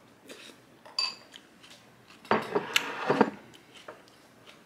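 A spoon clinks once against the cereal bowl about a second in. A little past two seconds comes about a second of loud crunching as a mouthful of Frosted Flakes is chewed.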